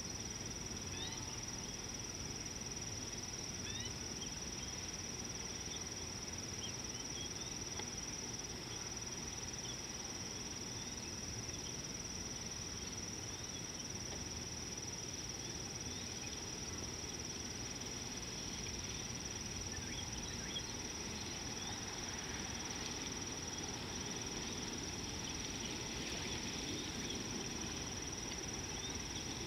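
Insect chorus, crickets or similar, holding one steady high-pitched drone over a low, even background rumble, with faint short chirps scattered through it.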